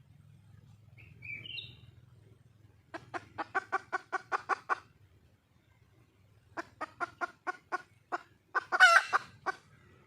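Red junglefowl hen calling for a mate: two quick runs of clucks, about six a second, then one louder, longer wavering squawk near the end.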